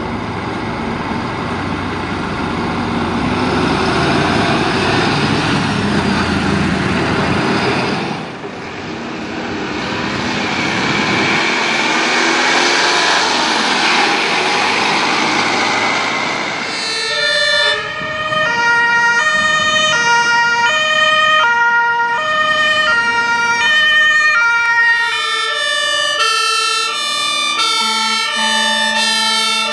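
German fire engines on an emergency run. For about the first half there is heavy engine and road noise. Then a two-tone Martinshorn siren sets in, stepping steadily between a high and a low note, and near the end a second two-tone siren overlaps it.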